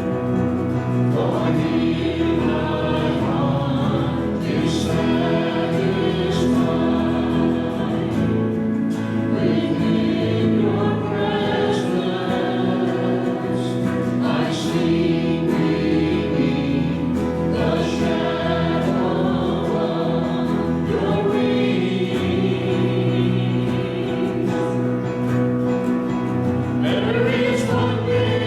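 A group of voices singing a hymn together over instrumental accompaniment with sustained bass notes, in phrases of a few seconds.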